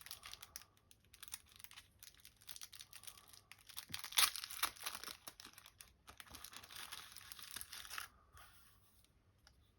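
Packaging of a screen protector kit crinkling and rustling as it is opened and its contents are taken out by hand: irregular crackles, loudest about halfway through, dying away in the last couple of seconds.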